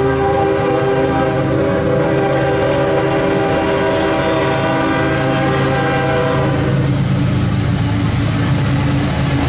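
CSX freight locomotive's air horn sounding one long blast of several notes at once, its crossing warning as the loaded coal train comes up to the grade crossing, cutting off about two-thirds of the way through. A low rumble from the locomotive and train runs underneath.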